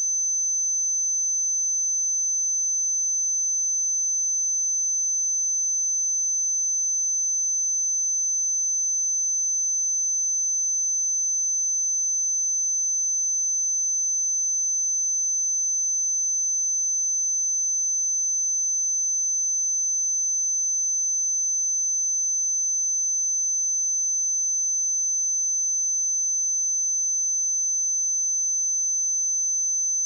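A pure 6135 Hz sine-wave test tone, a single steady high-pitched whistle held without change.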